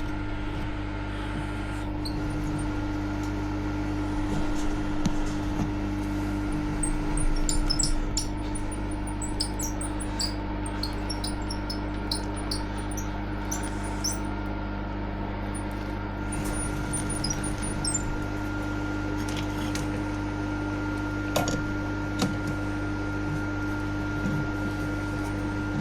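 Milling machine running steadily with a drill bit cutting out a seized, sheared bolt, with a run of short high squeaks from the cut partway through.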